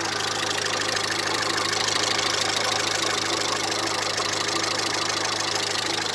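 1998 Honda Civic's D16Y8 1.6-litre four-cylinder engine idling steadily, heard close up in the engine bay, with a fast light ticking over its hum. It is running again now that a new coolant temperature sensor has cured its hard starting.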